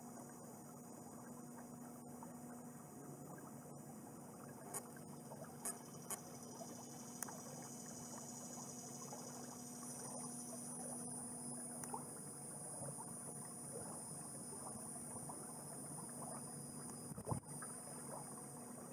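Canoe moving under paddle: faint water lapping and dripping from the paddle, with a few light clicks and one louder knock near the end. A steady high buzz joins about halfway.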